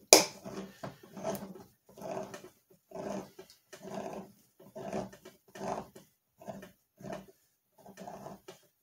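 Hand-crank can opener cutting around a steel can: a sharp click at the start, then a rhythmic grinding with each turn of the key, about one and a half strokes a second.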